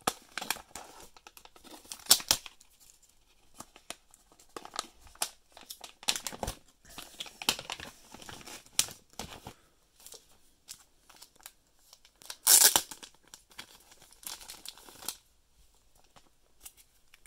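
A plastic mystery-pack pouch of sports cards being torn open and handled, giving irregular bursts of crinkling and tearing. The loudest bursts come about two seconds in and about twelve seconds in.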